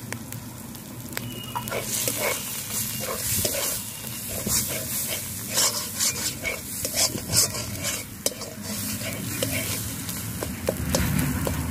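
A metal spatula scraping and stirring thick masala paste around a large kadai, with the paste sizzling in hot oil. The scraping strokes begin about a second and a half in and come irregularly.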